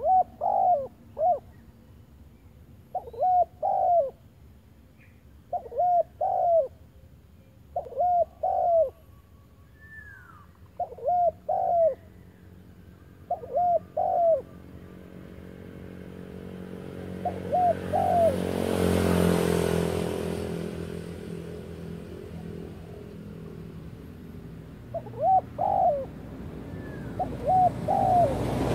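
Dove cooing in short phrases of three or four hooked notes, repeated about every two and a half seconds. Partway through, the cooing stops while a broad rushing sound with a falling drone swells and fades, then the cooing resumes near the end.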